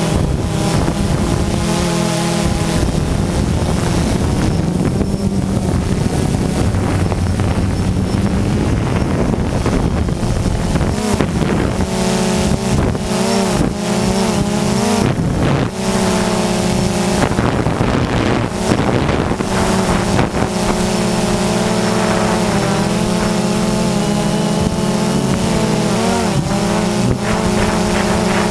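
Quadcopter drone's electric motors and propellers buzzing, heard from the camera on the drone itself, the pitch wavering and shifting as it manoeuvres.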